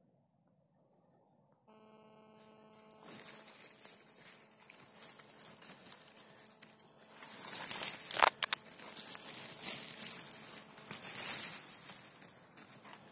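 Rustling and crackling of dry pine needles and twigs on the forest floor as they are brushed through. It starts a few seconds in and is loudest in two stretches, one around the middle and one near the end, over a faint steady hum.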